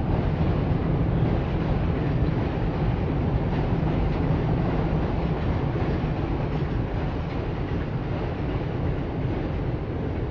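Steady, loud traffic rumble, deepest and strongest in the low range, swelling slightly at the start and easing off near the end.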